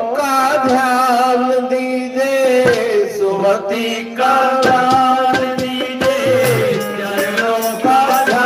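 A Hindi devotional bhajan: a man singing a slow, held melody over steady instrumental accompaniment, with regular hand-drum strokes.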